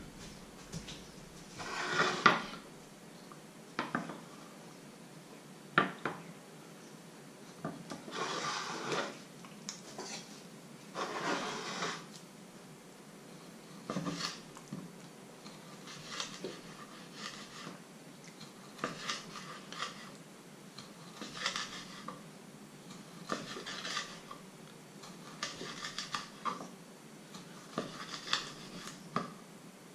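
Kitchen knife slicing a sausage on a wooden cutting board, the blade tapping the board in short sharp ticks every second or so through the second half. In the first half, a few longer rubbing sounds of handling at the counter.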